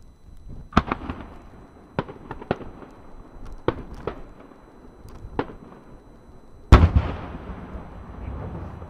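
Aerial firework shells bursting: a string of sharp bangs over the first six seconds, then one much louder boom about two-thirds of the way through, followed by a long rolling rumble that fades away.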